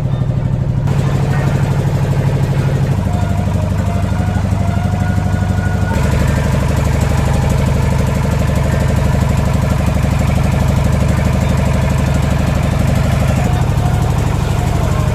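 Small wooden tourist boat's engine running steadily with a low, pulsing hum, its tone shifting a few times during the ride.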